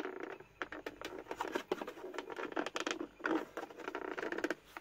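Hands handling the plastic housing of an Electrolux Supercyclone vacuum cleaner: a run of irregular light clicks, taps and scrapes of plastic as the rear exhaust cover is worked at.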